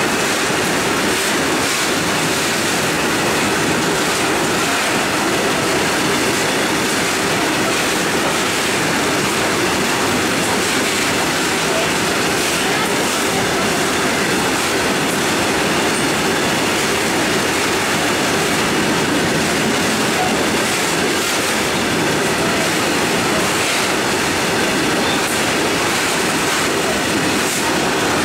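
Freight train's hopper wagons rolling past at speed close by, a steady, unbroken rumble and rattle of wheels on rail.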